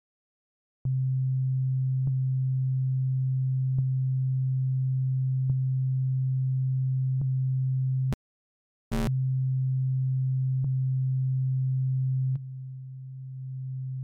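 A plain, steady low synthesizer tone from a ZynAddSubFX default preset note looping in LMMS. It restarts with a faint click about every 1.7 s. Just past the middle it drops out for about a second, with one sharp click. Near the end it becomes quieter and wavering.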